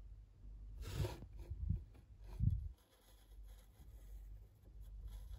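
Faint scraping of a wood-burning pen's hot tip on plywood, with a few soft bumps and handling noises in the first three seconds; otherwise quiet.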